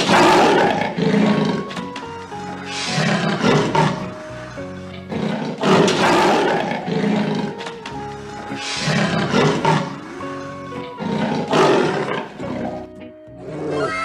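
A big cat gives rough growling roars, in about five pairs spaced roughly three seconds apart, over background music with steady notes.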